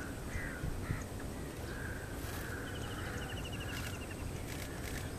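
Wild birds calling in a marsh: several short hoarse calls, and about halfway through a rapid run of high notes lasting about a second, over a steady low rumble.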